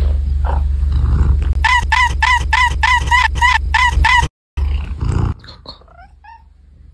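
Edited meme soundtrack: a steady low drone, then a rapid run of about nine identical pitched animal calls, about three a second, that cuts off abruptly into a moment of dead silence, followed by a few short, higher rising chirps.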